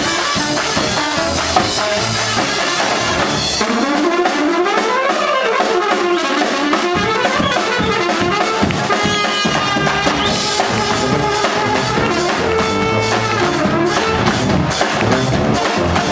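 Balkan brass band playing live: trumpets and trombones over tuba and drums. About four seconds in, the drums and bass drop out for a few seconds while the horns play a winding run, then the drums come back in and drive on to the end.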